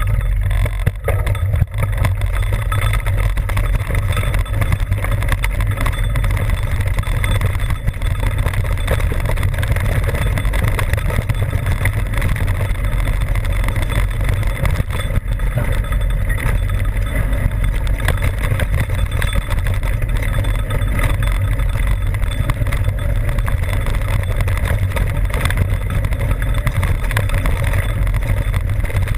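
Wind buffeting a mountain bike's mounted camera microphone, with the rumble and rattle of knobby tyres and the bike over a rocky dirt trail at speed. Loud and steady, dominated by a deep rumble.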